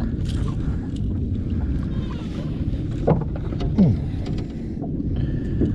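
Steady low rush of wind on the microphone and water moving around a small open boat's hull, with a few faint clicks. Two short falling squeaks cut through it, about three seconds in and again just before four.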